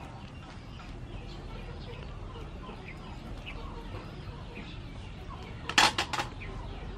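Chickens clucking faintly in the background, with a short clatter of three or four sharp knocks near the end.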